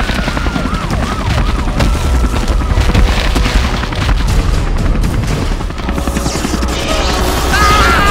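Action-trailer sound mix: dramatic music under booming explosions and rapid gunfire. Near the end a man screams.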